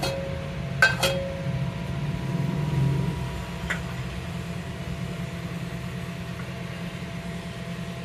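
Metal cookware clinking: two quick clinks about a second in with a short ringing after them, and a fainter clink near four seconds, over a steady low hum.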